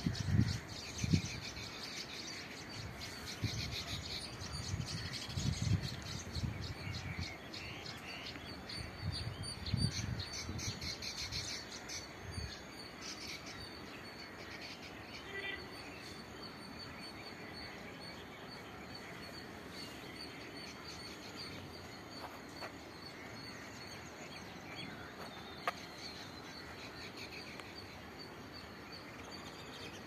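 A colony of baya weavers chattering in rapid high chirps, dense during the first dozen seconds and thinning out after that. Low rumbling bursts come and go in the same first stretch.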